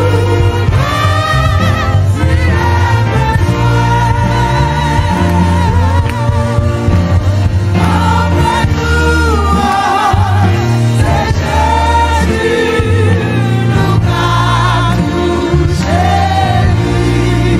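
Choir singing a Haitian Creole gospel worship song with a live church band, over a steady, heavy bass line.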